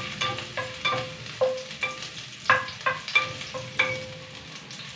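Wooden spatula stirring garlic in a stainless steel pan, knocking against the metal about twice a second so that the pan rings briefly after each knock, over a faint sizzle of sautéing.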